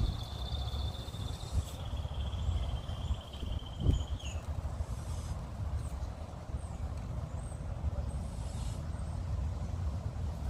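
Kitten snoring: a continuous low rumble, with one short bump about four seconds in.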